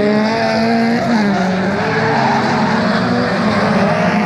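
Several folkrace cars racing together on a gravel track, their engines revving hard with tones that dip and rise as they corner and shift.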